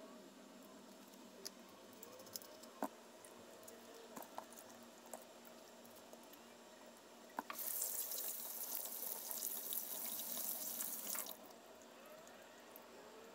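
Kitchen tap running into a stainless steel sink for about four seconds in the second half, starting and stopping abruptly. Before it, a few faint small clicks of hands working raw chicken wings over the sink.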